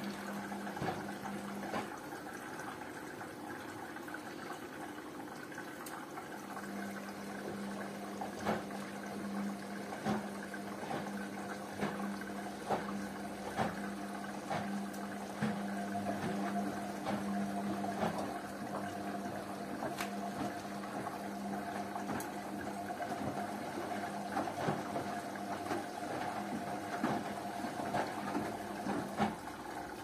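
Two front-loading washing machines, a Hotpoint Ariston and a Rainford, running a wash: water swishing in the drums with scattered short clicks and knocks. Under it a steady low hum, which drops out for a few seconds near the start and stops just before the end.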